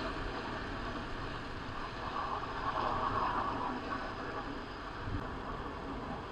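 Traffic noise heard from a moving motorcycle: a steady mix of engine and road noise, swelling briefly about three seconds in.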